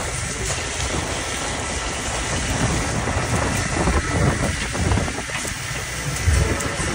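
Steady rumble and rush aboard a longline fishing boat: engine noise mixed with wind and water, swelling louder a few times.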